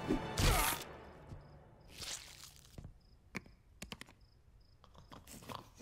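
Cartoon sound effects of Po swatting Mantis: a loud swishing hit right at the start, a softer whoosh about two seconds in, then scattered light taps and clicks. Faint high chirps recur throughout as night ambience.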